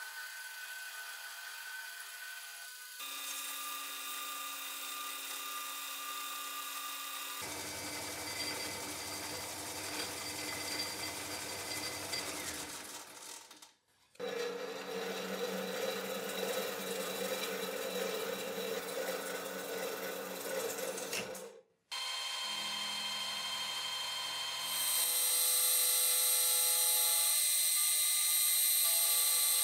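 Machine tools cutting brass: a metal lathe turning brass stock, then a milling machine's end mill facing a brass disc. A steady motor whine runs under the cutting noise, with abrupt changes and two brief drop-outs along the way. The milling near the end is the loudest part.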